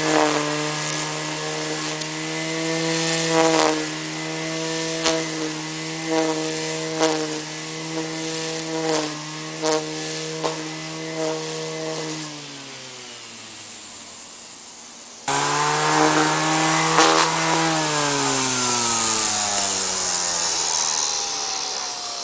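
Vintage Black & Decker 8209 corded electric string trimmer's 4.3-amp motor running with a steady whine, with sharp ticks every second or so as the spinning line strikes the grass. About twelve seconds in its pitch falls as it winds down; then it is abruptly back at full speed and winds down once more in falling pitch near the end.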